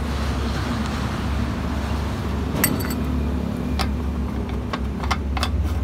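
A few short metallic clicks and clinks from a small used petrol engine being handled, over a steady low hum.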